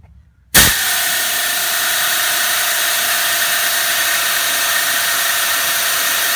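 Pneumatic air ratchet running steadily, a whine over air hiss, turning a thread-repair tap to re-cut a stripped spark plug hole. It starts suddenly about half a second in.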